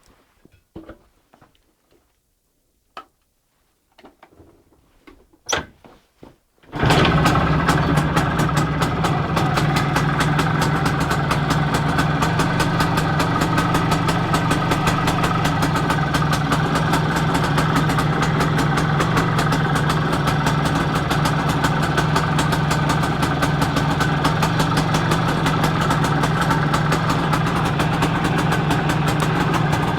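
Izh Planeta 4 motorcycle's single-cylinder two-stroke engine, freshly repaired, catching suddenly about seven seconds in after a few faint clicks, then running steadily at idle with a fast, even firing rhythm.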